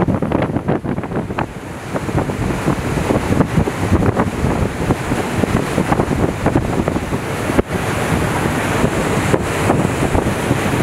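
Wind buffeting the microphone over choppy sea, mixed with the steady rushing of a Boeing Jetfoil 929-100 hydrofoil running foilborne at high speed and throwing spray. The sound grows somewhat louder after about two seconds.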